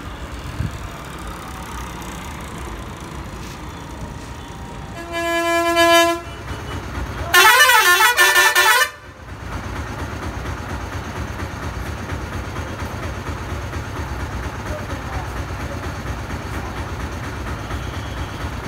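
Bus horns over a bus engine's low running rumble. About five seconds in, one steady horn blast lasts about a second. Then a louder warbling multi-tone horn sounds for about a second and a half.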